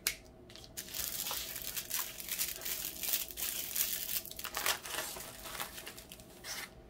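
Small plastic bags of diamond-painting drills crinkling and rustling as they are handled and sorted, with a sharp click as it begins.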